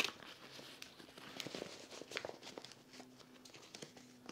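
Faint fabric rustling and crinkling, with scattered small clicks, as a packed hammock in its cloth pouch is handled and its flap opened.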